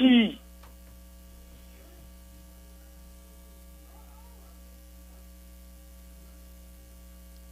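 A voice breaks off in the first half-second. Then steady electrical mains hum on the audio line, several even tones held without change, with only a faint murmur underneath.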